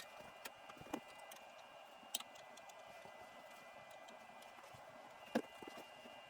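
Near silence, with a few faint clicks spread through it and a faint steady high-pitched whine.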